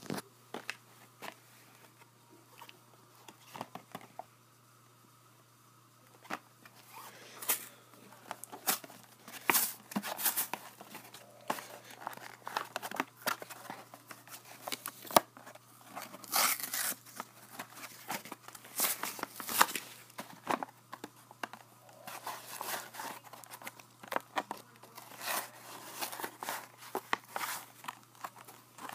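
Cardboard-backed plastic blister packs of toy figures being torn and pried open: irregular crackling, crinkling and ripping that starts about six seconds in and goes on in quick bursts.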